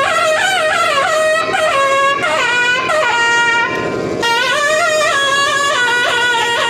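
Nadaswaram, the South Indian double-reed pipe, playing an unaccompanied raga alapana in Sindhu Bhairavi: a continuous loud melody full of sliding, ornamented notes.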